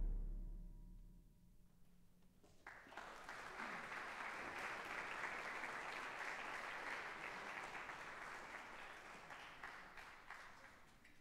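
A concert band's final chord dies away in the hall's reverberation. After a short silence the audience applauds, tapering off near the end.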